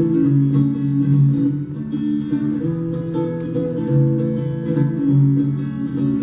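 Acoustic guitar strummed in an instrumental passage between sung lines, chords ringing steadily.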